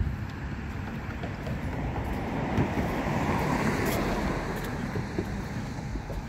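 Road traffic noise: a vehicle passing, swelling about three seconds in and then fading, over a steady low rumble of wind on the microphone.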